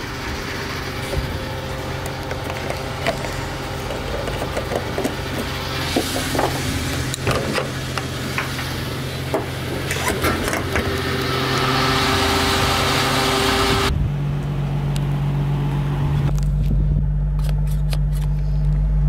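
Car being refuelled at a petrol-station pump, with steady pump and forecourt noise and scattered clicks and knocks of the fuel nozzle being handled. About fourteen seconds in, this cuts abruptly to a steady low hum.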